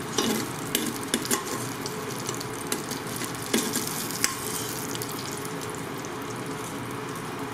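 Andouille sausage slices sizzling in hot fat in a stainless steel Instant Pot inner pot, with a metal slotted spoon scraping and clinking sharply against the pot several times as the slices are scooped out.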